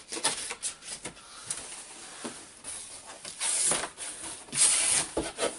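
A cardboard shipping box being opened by hand: packing tape crackling as it is peeled off, then the flaps scraping and rustling open, with two louder scrapes in the second half.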